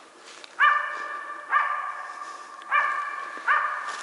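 Hunting laika barking, four barks roughly a second apart. The dog is baying at a capercaillie sitting in a tree.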